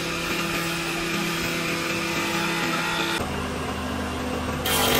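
An electric power tool's motor running with a steady whine over rushing noise. The sound changes abruptly about three seconds in and again near the end, getting louder.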